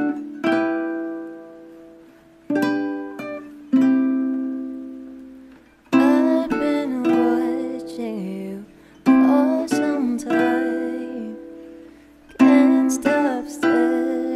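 Acoustic karaoke backing track of plucked-string chords, each ringing out and fading, with a man singing along from about six seconds in.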